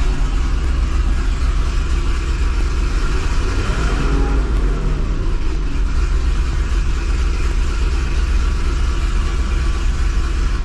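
2005 Corvette's LS2 V8 running at a steady idle through its 2-inch long-tube headers, with a brief rise and fall in engine pitch about four seconds in. This is the first start after the exhaust leaks at the header V-band joints were repaired; the owner thinks most of the leak is gone but a little may remain.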